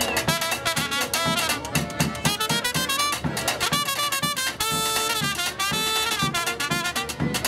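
Small street band playing a lively tune: a trumpet leads over an accordion and other horns, and a drum keeps a steady beat.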